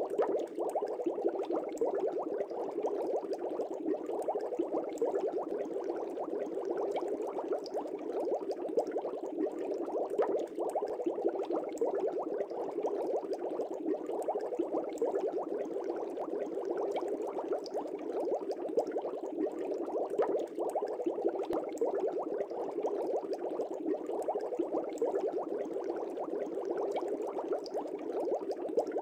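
Steady, dense water bubbling, a continuous stream of small bubbles with no change in rhythm or level.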